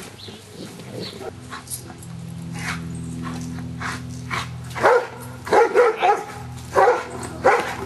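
Giant Schnauzer barking, a string of about five loud, short barks starting about five seconds in, over a steady low hum.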